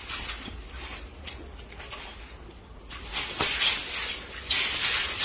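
Rustling and scraping noises, quiet at first and louder and busier from about three seconds in.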